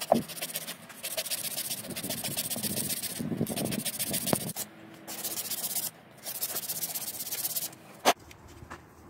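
Sandpaper rubbing along a hazel wood arrow shaft drawn through it by hand, in four long passes with short breaks between. A sharp knock near the end.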